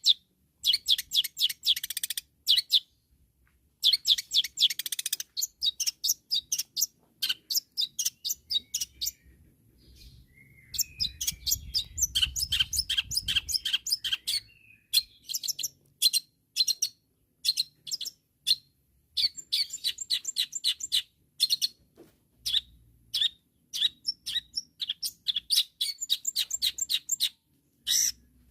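Long-tailed shrike (cendet) singing hard: rapid runs of sharp chirping notes in bursts of a second or two, broken by short pauses.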